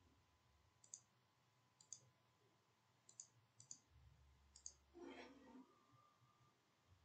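Faint computer mouse clicks, about five of them spaced irregularly, made while working the IDE's menus. A brief soft noise comes about five seconds in.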